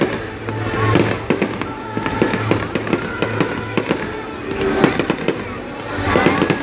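Aerial fireworks going off in quick succession: many sharp bangs and crackles, one after another, with people's voices mixed in.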